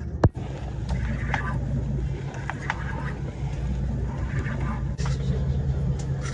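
Inboard diesel engines of a 35-foot Caribbean gameboat running underway, a steady low drone, with a sharp click just after the start and faint voices now and then.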